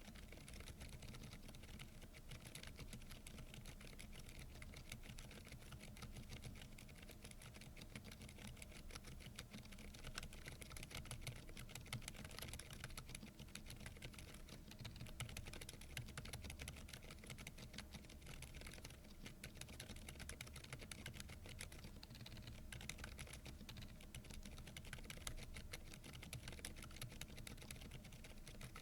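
Typing on a Keychron V10 Pro Max mechanical keyboard fitted with silent tactile banana switches: a fast, continuous run of key clicks.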